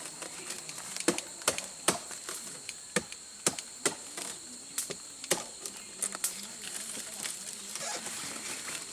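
Irregular sharp crunching snaps of dry rice stalks and straw being handled during the harvest, about one or two a second, over a steady high-pitched hum.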